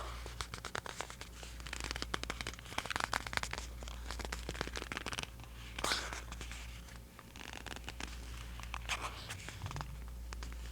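Tapping and scratching on an NYX Epic Wear waterproof eyeliner: quick runs of small clicks mixed with dry scratches, with one louder scrape about six seconds in.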